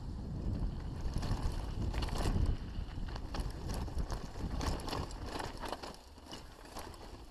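Mountain bike rolling down a rough dirt singletrack: a low rumble of tyres and wind, louder over the first three seconds, with frequent clicks and rattles from the bike over stones and bumps.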